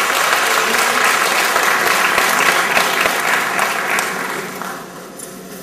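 Audience applauding, a dense patter of clapping that dies away over the last second or so.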